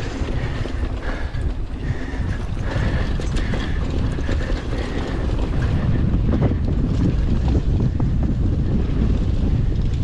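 Wind buffeting the microphone as a mountain bike rolls over rough ground, with the rear hub's freewheel ratcheting while coasting and short knocks as the bike rattles over bumps.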